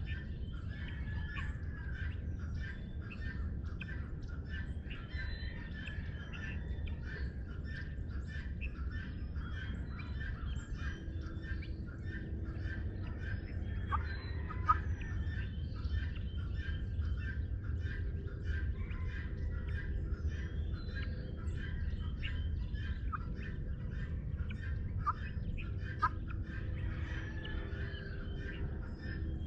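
Dawn chorus of many birds chirping and calling over one another without a break, over a steady low rumble. A couple of sharper, louder calls stand out, one in the middle and one near the end.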